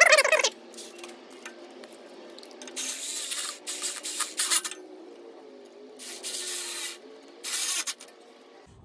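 Cordless power tool tightening worm-drive hose clamps, the clamp screws rasping against the band in four short bursts, after a brief loud clatter at the very start.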